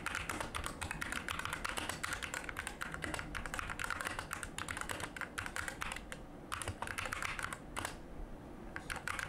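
Fast typing on a Geek SK61 60% mechanical keyboard fitted with stock, unlubed Gateron red optical linear switches. A dense patter of keystrokes runs throughout, with a couple of short pauses in the second half.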